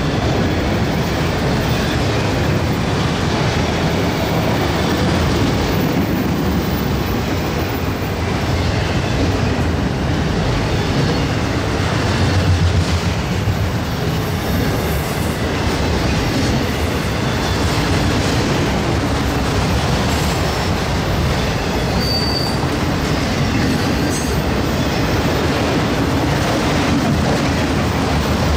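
Freight train rolling past, with a steady loud noise of steel wheels running on rail and one brief high wheel squeal about two-thirds of the way through.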